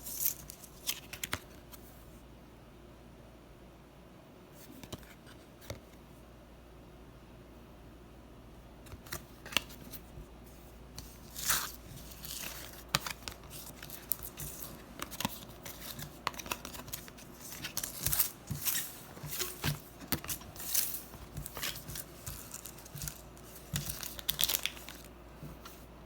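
Trading card pack wrapper being torn and crinkled by hand. There are a few scattered crackles at first, then much busier crinkling and tearing through the second half.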